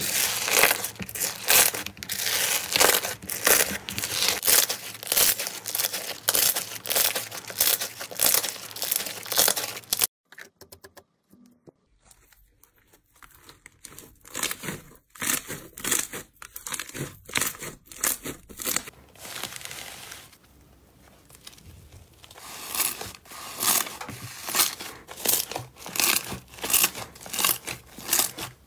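Hands squeezing slime: a bubble-filled orange slime crackles and pops in repeated squeezes, then after a short lull about ten seconds in, a glossy pink slime and then a thick green slime are kneaded with softer, squelchy crackles.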